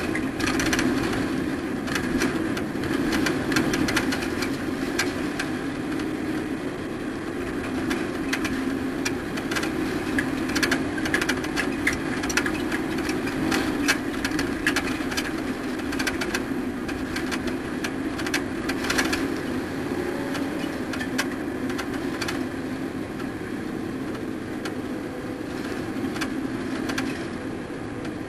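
Race truck engine running at a steady pitch, with frequent sharp rattles and clicks over it.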